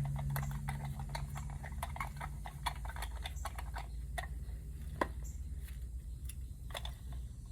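Rapid small metallic clicks and ticks of a hand tool working a steel bolt out of the top of a brass pressure reducing valve, busier in the first half, over a low hum that fades out about halfway through.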